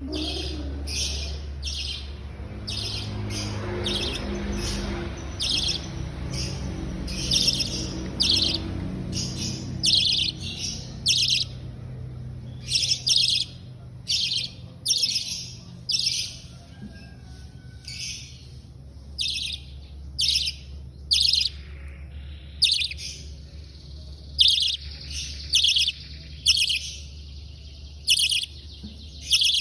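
A bird chirping repeatedly: short, high-pitched trilled chirps about once a second, over a steady low hum that fades after the first ten seconds or so.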